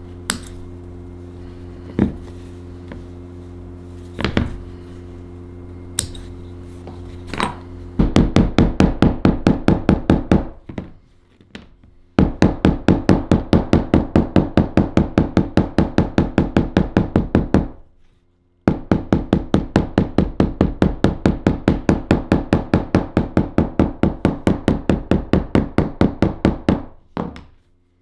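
A few scattered clicks, then a small metal hammer tapping rapidly on a stitched vegetable-tanned leather knife sheath, about five light blows a second, in three runs with short breaks, working along the stitch lines.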